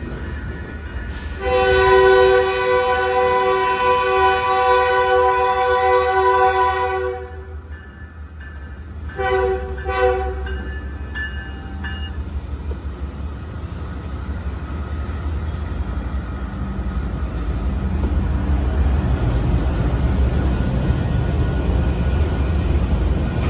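Diesel locomotive's multi-chime air horn sounding one long blast, then two short blasts about nine seconds in. After that comes a low rumble of the train running, growing steadily louder.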